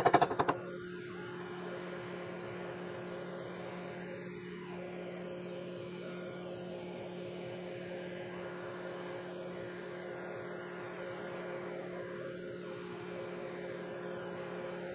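Steady electric motor hum at one constant pitch with its overtones, with no cutting or clicking.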